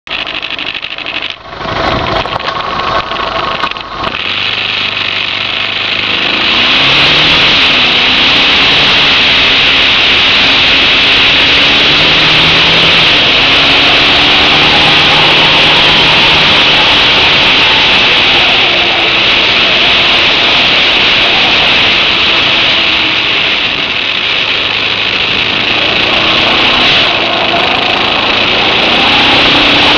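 Suzuki DR650's single-cylinder engine pulling the motorcycle along at road speed, its pitch rising and falling with the throttle and gears. From about six seconds in, heavy wind rush on the camera microphone takes over and the engine sits beneath it. Two sharp knocks come in the first few seconds.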